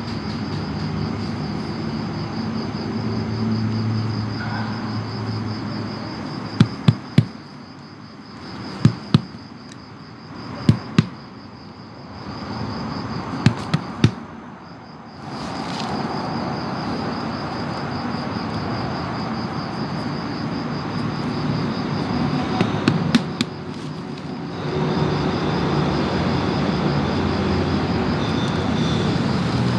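Crickets chirping in a steady high trill over a continuous low rumbling noise, with several sharp clicks in the middle.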